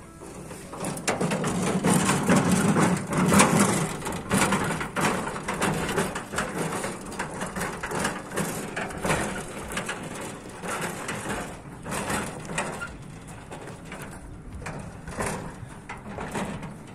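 Empty two-wheeled sheet-metal garden cart rattling and clattering as it is pushed over lumpy ploughed ground, with a steady stream of irregular knocks, heaviest about two to four seconds in.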